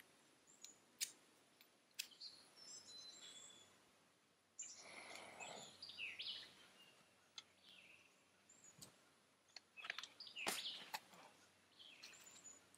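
Breath blown into a smouldering tinder bundle to bring it to flame, a breathy rush about five seconds in. Small birds chirp throughout, and there are a few sharp clicks, with more near the end as the fire takes.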